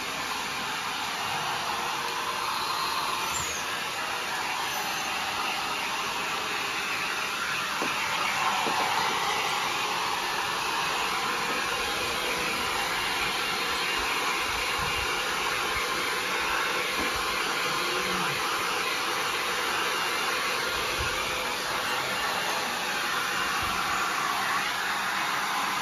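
Small handheld electric hair dryer running steadily, blowing on a freshly bathed dog. The sound gets a little louder about eight seconds in.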